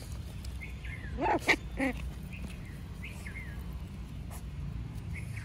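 A small dog gives a brief high call about a second in, with a short repeat just before two seconds. Small birds chirp now and then over a steady low rumble.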